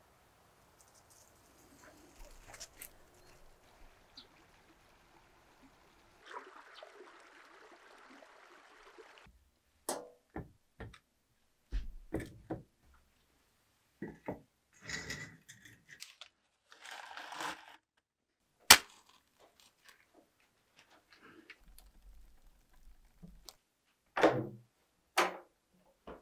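Faint outdoor hush, then sparse indoor handling sounds: knocks, clunks and scraping at a whitewashed wood-burning stove with a metal cooktop, one sharp click being the loudest. Two heavy thumps near the end.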